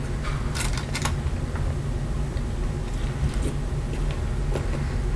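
A metal fork clicking and scraping against a foil-lined plate as food is picked up, a few clicks about a second in and fainter ones later, over a steady low hum.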